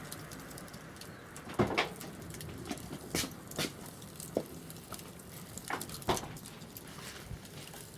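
Wood bonfire crackling, with irregular sharp pops over a low background.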